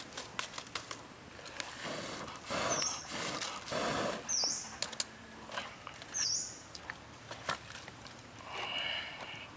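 A bird repeating a short, high chirp about every two seconds, three times, with soft handling noises and a few clicks in between.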